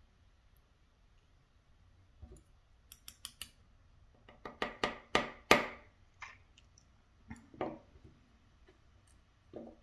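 Small metal clicks and taps from a Schlage Primus lock cylinder being tapped and handled to dump its finger pin springs out: a quick run of four clicks about three seconds in, a louder cluster around five seconds, then a few scattered clicks.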